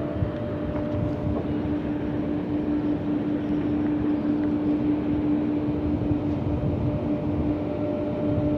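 A steady engine drone: a constant hum that holds one pitch over a rumbling noise, without revving or changing.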